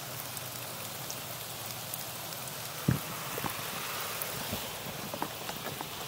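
Steady rain falling, with scattered drips and one sharp knock about three seconds in.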